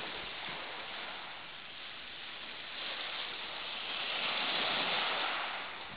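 Small waves breaking and washing up a shingle beach, a steady hiss that swells louder about halfway through and falls away near the end.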